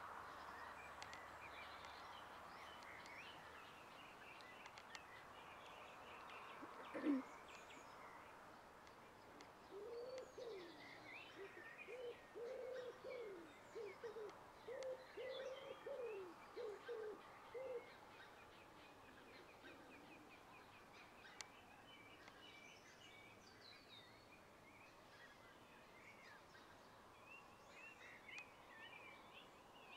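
Faint birdsong with scattered high chirps. About a third of the way in, a dove coos in a run of low, soft notes for several seconds, just after one louder, falling call.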